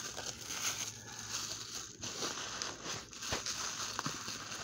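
Plastic bubble wrap being handled and pulled open, crinkling and rustling, with a few sharper crackles, as a wrapped item is unwrapped.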